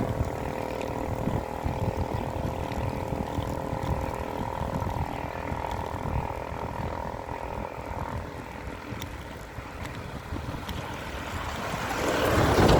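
Wind rumbling on the microphone of a moving bicycle, over the steady drone of a motor vehicle's engine that fades out about two-thirds of the way through. A louder rush of noise swells up just before the end.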